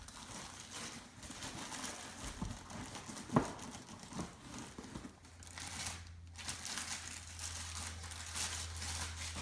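Packing wrap crinkling and tearing as it is handled, with one sharp knock a little over three seconds in.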